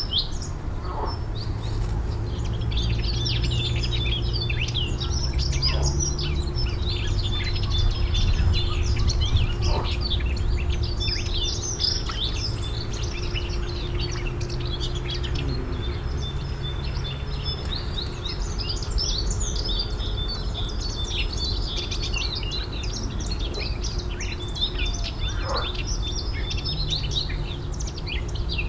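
Many songbirds chirping and singing at once, a dense, continuous chorus, over a low steady rumble.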